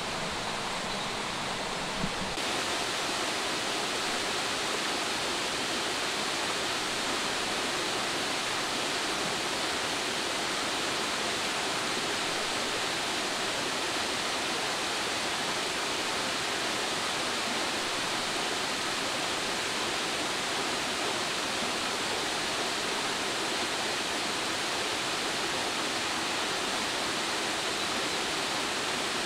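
Steady rush of falling water from a waterfall, an even hiss with no breaks. A single click about two seconds in.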